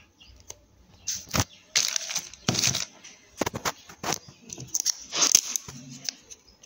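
Thin clear plastic wrapping crinkling and crackling as it is pulled and torn off a small boxed product, in irregular bursts.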